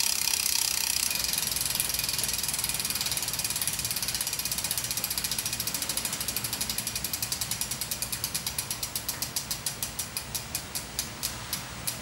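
2013 Mavic Ksyrium SLS rear hub freewheeling, its two pawls clicking over the ratchet as the wheel spins without pedalling. The clicking starts as a fast, even buzz and slows steadily into separate clicks, fewer and fewer each second, as the wheel coasts down toward a stop.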